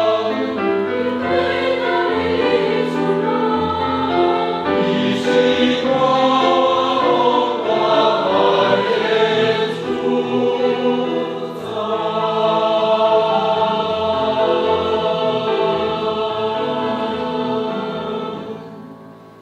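Church choir singing a hymn in parts, ending on a long held chord that fades away near the end.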